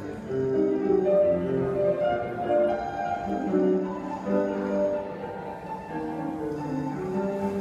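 Grand piano played solo: chords under a melody line, with notes held and ringing.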